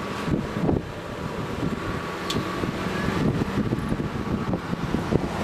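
Wind buffeting the camcorder microphone in gusty rumbles, with a faint steady hum underneath.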